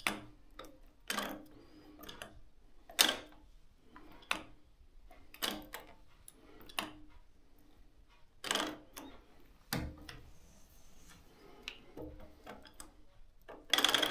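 The quill feed handle on a Bridgeport milling machine head is worked by hand, giving a series of sharp metal clacks and clunks about a second apart, some with a brief ring. There is a louder burst of clatter near the end.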